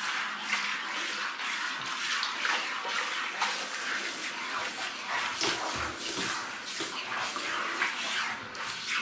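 Water spraying from a handheld shower head onto a cat's wet fur as it is rinsed: a steady hiss of spray that changes as the head moves over the body.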